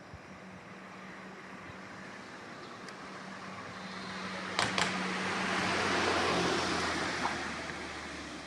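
A motor vehicle driving past: engine hum under tyre and road noise that swells to a peak about six seconds in and then fades. Two sharp knocks come just before the peak.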